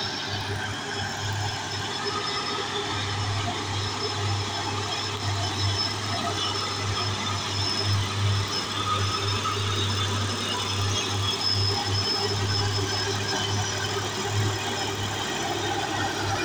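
Heavy diesel trucks climbing a hill, their engines labouring under load with a steady, low, pulsing note.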